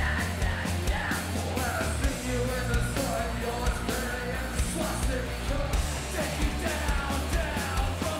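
Live rock band playing loud: a male lead singer sings into a hand-held microphone over a steady drumbeat and heavy bass.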